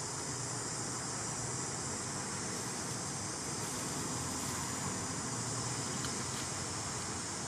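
Steady high-pitched chorus of forest insects, an unbroken hiss, over a low steady hum.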